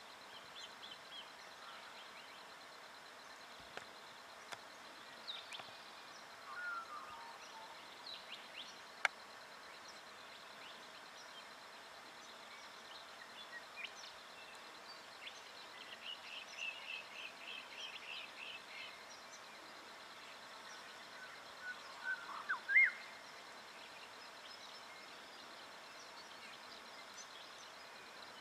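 Faint outdoor background with scattered short bird calls: brief chirps, a quick run of repeated notes midway, and a louder short rising call about 22 seconds in.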